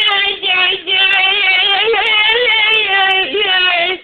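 A person's voice making a high, nasal, sustained 'eeee' whine at a near-constant pitch, held with slight wobbles and a short break about half a second in, cutting off at the end.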